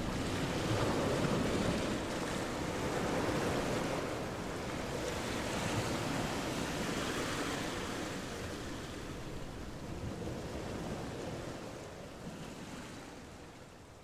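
Ocean surf: waves washing in and receding in slow swells, fading out near the end.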